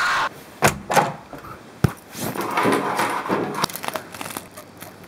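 Wet faux-fur fursuit tail swung hard to throw out water, giving a few sharp whips and swishes, then light metallic clinks and jangles as it is hung on a rotary clothesline.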